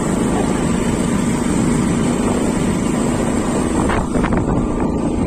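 Motorcycle riding along a road, its engine running steadily under a constant rush of wind over the microphone.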